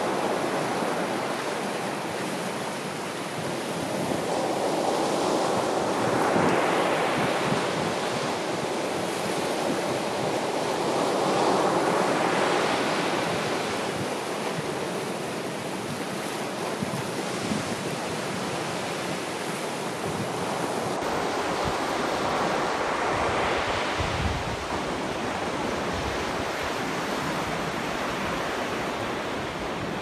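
Sea surf: waves breaking and washing over rocks, a steady rush that swells and eases every several seconds. About two-thirds of the way through, the sound changes abruptly to a different surf recording with more low rumble.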